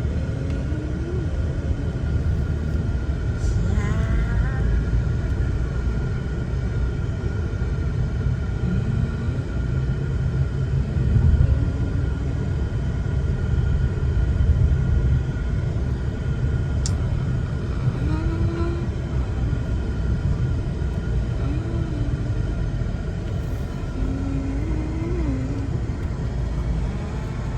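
Car cabin noise while driving: a steady low rumble of road and engine.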